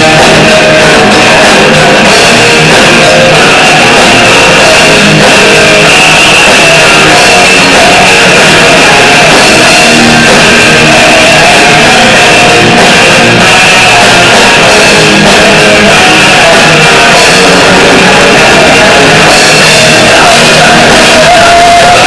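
Loud live heavy rock band playing: distorted electric guitars, bass guitar and drum kit, without a break.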